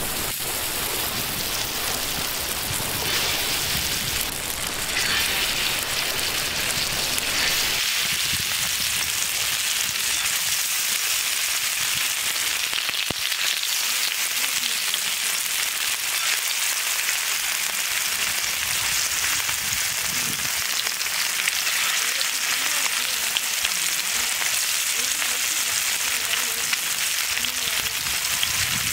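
Marinated fish pieces sizzling and crackling as they shallow-fry in hot oil on a flat iron pan, with more pieces laid into the oil one after another. A steady, dense frying hiss that settles into an even crackle after about eight seconds.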